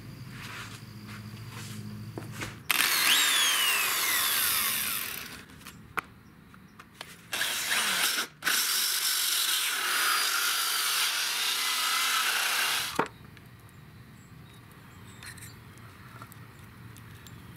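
Electric drill with a hole saw cutting round plugs out of a plywood board, in several runs: about two and a half seconds, a short burst, then about four and a half seconds. The motor's whine falls in pitch during the first run.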